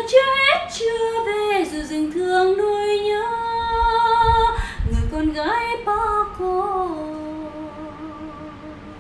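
A woman singing a Vietnamese song about the Central Highlands, in phrases of held notes and glides. The last long note, sung with vibrato, fades away near the end as the song closes.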